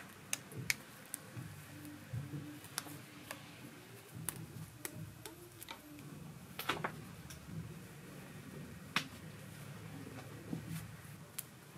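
Scattered light clicks and taps at irregular intervals from hands handling and fixing a braided hairpiece on a head, over a faint low background hum.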